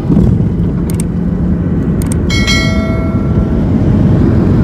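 Steady low rumble of an airliner's jet engines heard from inside the cabin. Two sharp clicks about a second apart, then a bell ding that rings on for about a second, from a subscribe-button animation.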